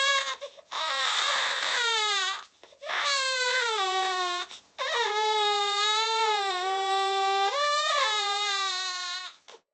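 A young child crying loudly: three long, drawn-out wails with short catches of breath between them, each falling in pitch toward its end, the third the longest with a brief upward jump near its end.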